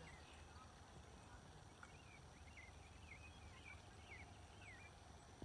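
Faint open-air ambience: a songbird gives a run of short, swooping chirps through the middle, over a steady low rumble.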